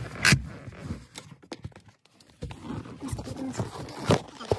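Phone being handled and fitted into a mount inside a pickup's cab: rubbing and handling noise on the microphone, with a sharp knock just after the start and two more near the end.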